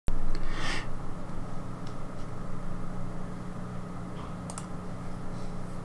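Steady low electrical hum with a fan-like hiss, starting abruptly. There is a short hiss about half a second in and a few faint clicks later on.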